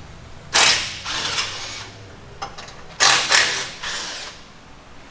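Cordless impact wrench run in two bursts of a little over a second each, driving the bolts of a rear sway bar drop bracket home.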